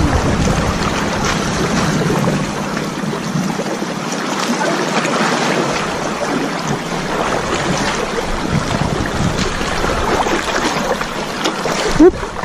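Sea water washing and splashing around rocks, with wind buffeting the microphone. A single sharp knock comes near the end.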